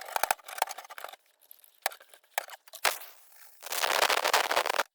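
Hand cleaning of a vise part: a quick run of clicks and scrapes, a few scattered clicks, then a steady hiss of about a second near the end.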